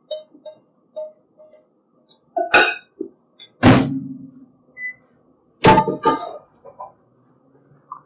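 Light clinks and scrapes of a utensil against a frying pan as cooked greens are emptied into a bowl, then three loud knocks of the pan and its contents. The loudest knock comes about three and a half seconds in and rings on briefly.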